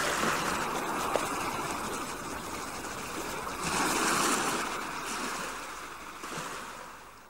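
Ocean surf: waves breaking and washing in, swelling about four seconds in and then fading out.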